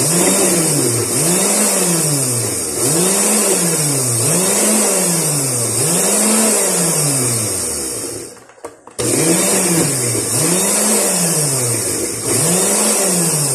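Countertop electric blender running, chopping basil leaves, garlic and olive oil into pesto. Its motor pitch rises and falls about every second and a half. It stops for a moment about eight seconds in, then starts again.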